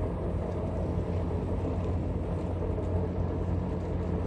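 Motor yacht's engines running as it manoeuvres, a steady low hum.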